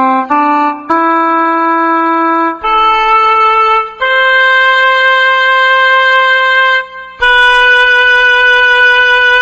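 Solo trumpet playing a slow melody in long held notes: a couple of short low notes, then held notes stepping upward, with a brief break before a last long note near the end. It is the music played for a minute of silence.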